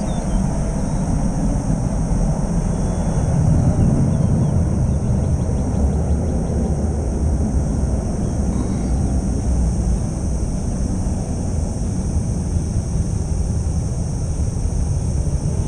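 Twin-engine jet airliner's engines rumbling as it climbs away after takeoff, loudest about four seconds in and then slowly fading. A steady high-pitched hum sounds over it.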